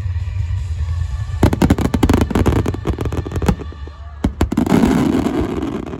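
Large aerial fireworks at the finale of a show: a low rumble, then a dense run of rapid crackling bursts from about one and a half seconds in, and a few last bangs about four seconds in. A swell of noise follows and fades near the end.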